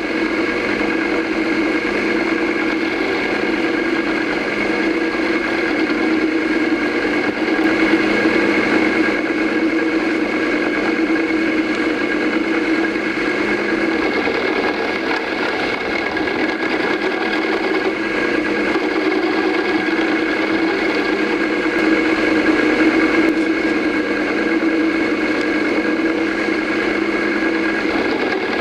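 Small milling machine running steadily, its end mill taking light passes of about 5 thousandths across the end of a vise handle: a steady motor hum with a higher whine, swelling a little now and then.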